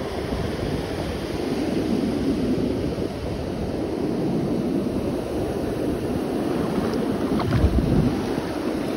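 Ocean surf washing along the shore, with wind buffeting the microphone. Near the end a louder rush comes as a foamy wave washes in around the feet.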